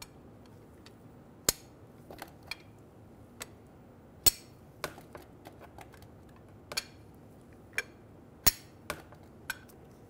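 24 mm wrench clinking against the oil pressure switch and the engine metal as it is worked to loosen the switch: about a dozen irregular, sharp metallic clicks, three much louder than the rest, some with a short ring.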